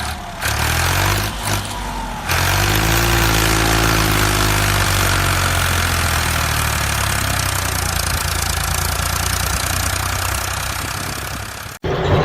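Truck engine running at a low, steady pitch that wavers slightly, with a loud hiss over it. It comes in abruptly about two seconds in and cuts off sharply near the end.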